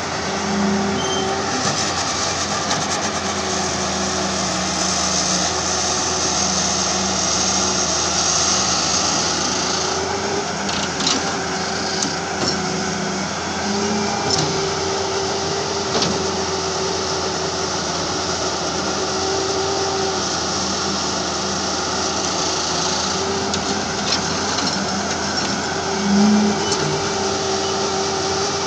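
Halla HE 130W wheeled excavator's diesel engine and hydraulics running under load while digging and dumping soil, the engine note swelling and easing as the arm works. A few short knocks come in the middle.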